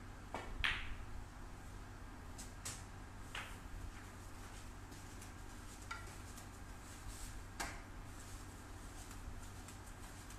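Snooker shot: the tip of the cue strikes the cue ball with a light click, and a moment later the cue ball hits a red with a sharp, loud clack. A few fainter clicks and knocks follow over the next several seconds.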